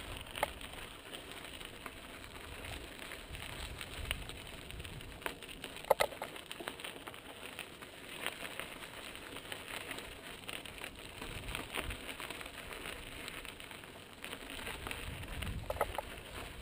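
Mountain bike tyres crunching steadily over a dry dirt and gravel trail, with scattered clicks and rattles. There is a sharp knock about six seconds in and a few more knocks near the end.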